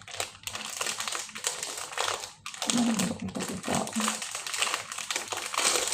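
Crinkling and rustling of packaging, handled continuously, with a short low murmur twice around the middle.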